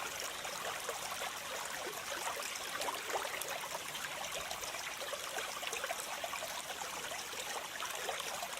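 Small creek water trickling and babbling steadily over its bed.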